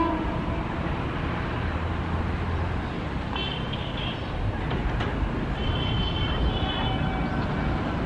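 Steady rumble of a train running along the track. Faint horn notes sound twice, about three and a half seconds in and again around six seconds.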